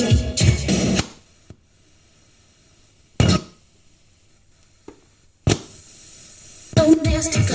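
Hip hop music with record scratching playing through a Hitachi TRK-3D8 boombox cuts off about a second in. Then a gap broken by a faint click and two short loud bursts, the second followed by a faint steady hiss, before the music comes back near the end.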